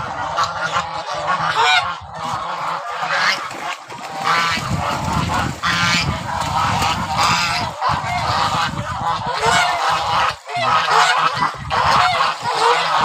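A flock of lionhead geese honking over one another, in repeated calls that run on throughout.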